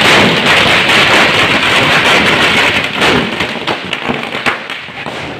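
A string of firecrackers going off in a rapid, continuous crackle of small pops. It thins out over the last couple of seconds into a few separate bangs.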